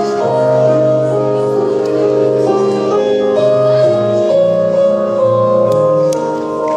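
Instrumental music with held melodic notes that change in steps, at a steady level.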